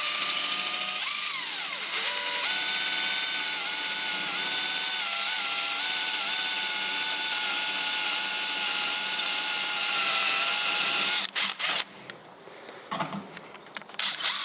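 Cordless drill boring through sheet metal with dish soap as the lubricant, its motor whining steadily with small dips in pitch as the bit bites. It stops about eleven seconds in, followed by a few faint clicks.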